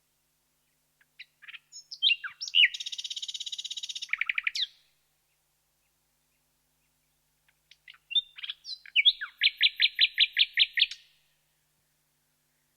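Common nightingale singing two song phrases with a pause between them. Each phrase opens with a few separate short notes and breaks into a fast, loud run of repeated notes. The second phrase starts about halfway through and repeats its note about six times a second.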